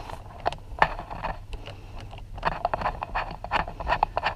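Hand tool clicking and scraping against a T30 Torx screw behind the steering wheel as the bit is fitted and worked: a run of short, irregular metallic clicks that grow thicker about halfway through.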